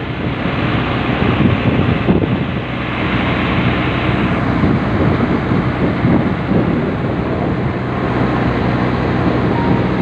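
River boat's engine running steadily while the boat is under way, with wind rushing over the microphone. The rushing eases a little about four seconds in.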